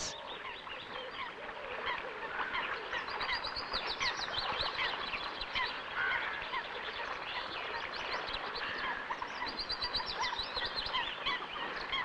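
A busy chorus of waterbirds calling, with many short calls overlapping and goose-like calls among them. A rapid high trill comes about three seconds in and again near ten seconds.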